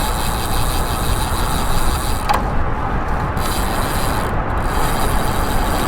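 Bicycle tyres rolling and crunching over sand and gravel on a dirt-road descent, with a steady rush of wind on the microphone.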